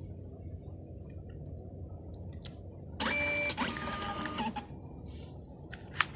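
iT4e label printer printing and feeding out labels: a mechanical whir with steady whining tones in two short runs, starting about three seconds in and stopping a second and a half later. A single sharp click near the end is the loudest sound.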